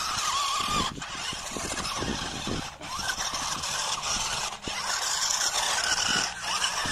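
Small electric motor and plastic gearbox of a 1/16-scale 4WD rock crawler RC car whining, the pitch wavering up and down as it climbs over loose dirt, over a rough steady hiss. The sound breaks off abruptly and resumes several times, about every one to two seconds.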